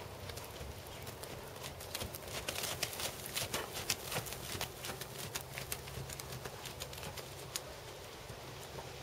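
Hoofbeats of a Percheron/Thoroughbred horse trotting on sand arena footing. The strikes are loudest about three to four seconds in, as the horse passes close, then fade as it moves away.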